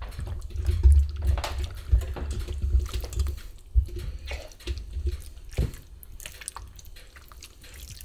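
A spatula stirring and mashing shredded chicken, lumps of cream cheese, hot sauce and ranch dressing in a stainless steel mixing bowl: wet squelching with scattered knocks and scrapes, quieter after about six seconds.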